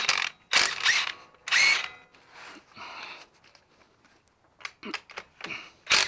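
Handheld power tool run in short trigger bursts: three loud bursts in the first two seconds, softer runs after that, and a few brief bursts near the end.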